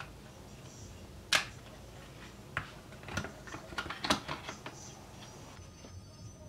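A Crucial 2.5-inch SSD in its metal bracket being fitted into a Lenovo Y50-70 laptop's drive bay: a string of irregular clicks and knocks, the loudest about a second in, with more bunched together around three to four seconds in.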